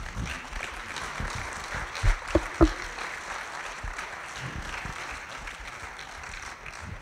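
Audience applauding steadily, with a few louder thumps about two seconds in.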